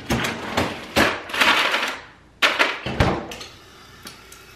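Ice cubes clattering and rattling into a glass mason jar, then two sharp knocks as the refrigerator's freezer drawer is pushed shut, followed by a faint steady hiss of water running from the fridge door dispenser into the jar.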